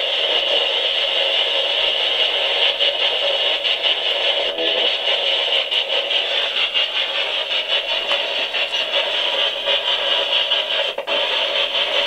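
Spirit box scanning through radio stations: a steady hiss of radio static finely chopped as it sweeps, with a brief dip about eleven seconds in.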